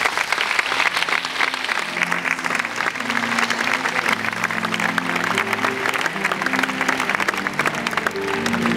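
Audience applauding with dense clapping while the band plays slow, held notes underneath. The music swells near the end.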